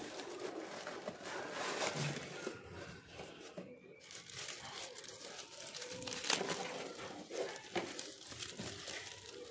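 Honeycomb kraft paper packing wrap crinkling and rustling as it is pulled from a cardboard shipping box and handled, with many small crackles.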